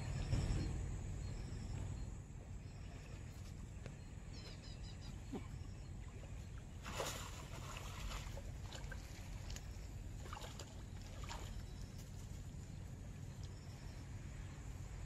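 A hooked rohu splashing at the water's surface as it is drawn into a landing net, with one loud splash about seven seconds in and smaller splashes after it, over a steady low rumble.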